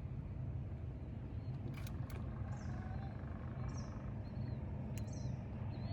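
A few short bird chirps over a steady low rumble, with two sharp clicks about two seconds in.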